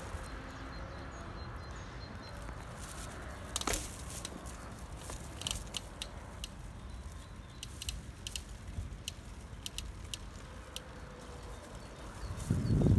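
Footsteps on a paved sidewalk, a sharp step roughly every second, over a low steady outdoor rumble with faint bird chirps. A louder low rumble rises near the end.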